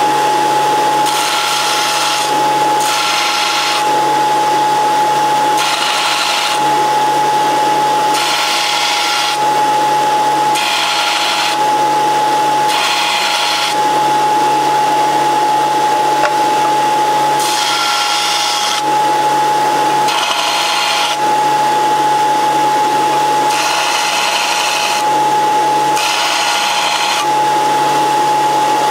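Vertical belt sander running with a steady high whine. The end of a short metal rod is pressed against the belt again and again, each contact a grinding noise lasting about a second.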